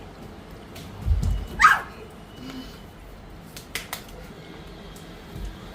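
A dog gives one short yelp that falls in pitch, about one and a half seconds in, just after a low thud. A few sharp clicks follow near the middle.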